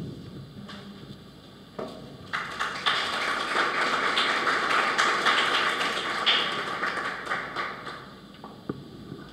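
An audience applauding for about six seconds, starting a little over two seconds in and dying away near the end, after a couple of short knocks.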